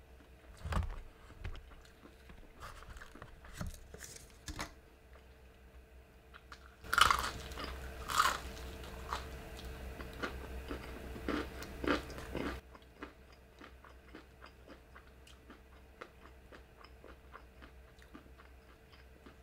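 Close-miked biting and chewing of crispy fried chicken, the breading crunching in many small crackles, loudest over about five seconds in the middle.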